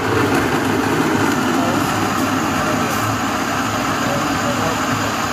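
Countertop blender motor running steadily and loudly, chopping and pureeing chunks of beetroot and carrot in liquid.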